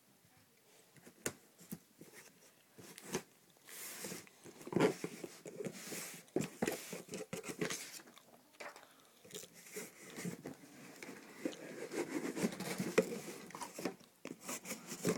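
Rustling and crinkling of packaging with scattered knocks and clicks, as a shoebox and its paper wrapping are handled and opened; it is sparse at first and gets busier about four seconds in.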